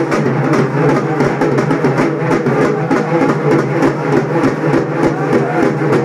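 Hand-held frame drums beaten with sticks in a fast, continuous rhythm, the folk drumming that accompanies a Karnataka ritual mask dance.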